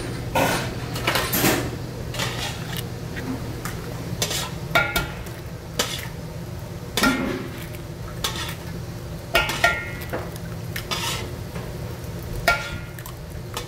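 Metal spatula scraping and clinking on a steel flat-top griddle as a rolled egg omelette is turned and pushed along, in irregular sharp strokes, some ringing briefly, over a steady low hum.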